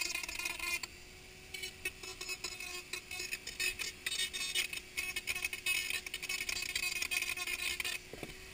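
Handheld rotary tool running with a steady whine while its bit sands and grinds the rough inside of a helmet shell, the scratchy contact noise coming in rapid bursts. The contact noise drops away briefly about a second in and again near the end, leaving only the motor whine.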